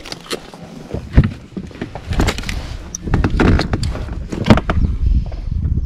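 Irregular knocks and clatters over a low rumble, the sound of handling gear in a small inflatable boat. There is a cluster of knocks in the middle stretch and one sharp click just at the end.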